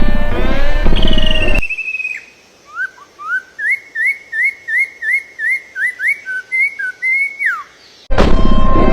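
A bird whistling: one long, slightly falling note, then a series of about a dozen short rising whistled notes, roughly two a second, ending on a falling note. Before it, loud sliding tones cut off abruptly about a second and a half in, and they start again just before the end.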